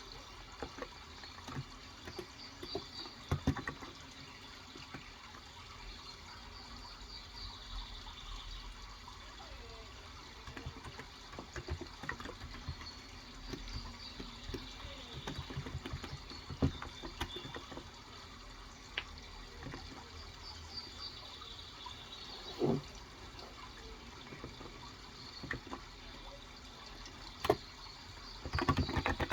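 Typing on a Cox Endeavor electrostatic capacitive (Topre-style) keyboard with 35 g switches: scattered irregular keystrokes, with a quick run of keys near the end. Underneath is a steady sound of running water with occasional faint bird chirps.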